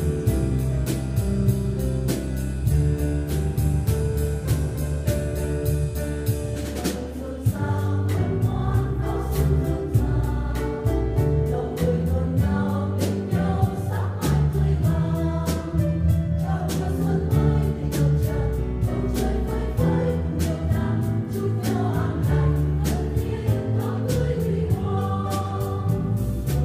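Mixed church choir singing a Vietnamese hymn with a band of drum kit and keyboard. The song opens instrumentally with a steady drum beat, and the choir comes in about seven seconds in.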